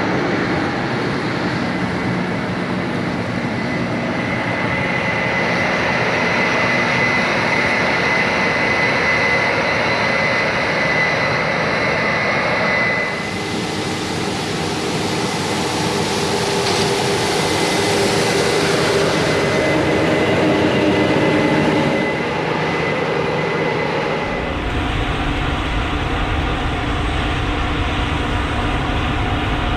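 Heavy harvest machinery running steadily, a continuous engine and mechanical drone. A faint whine sits over it at first; the sound turns brighter and hissier about 13 s in, then shifts to a deep low rumble about 24 s in.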